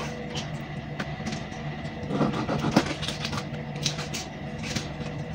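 Kitchen knife cutting a small raw fish on a plastic cutting board: scattered knocks and scrapes of the blade against the board, busiest a couple of seconds in, over a steady low hum.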